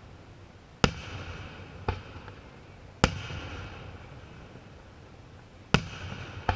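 Aerial firework shells bursting: three loud bangs a couple of seconds apart, with two softer bangs between them, each followed by a fading tail of echo.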